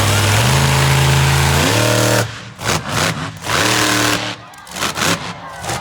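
Monster truck engine running at a steady high note, rising as the throttle opens about a second and a half in. It then breaks into a series of short throttle blips, cutting off sharply between each.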